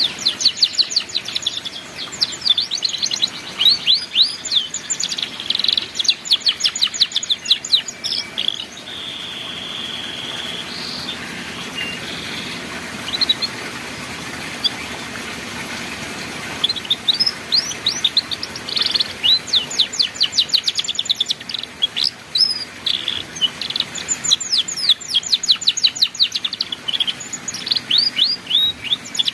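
Domestic canary singing a 'ngeriwik' song of fast, tightly repeated chirps and trills. Around nine seconds in it holds a short steady whistle and then goes quieter, and from about 16 seconds the rapid trills start again and keep going.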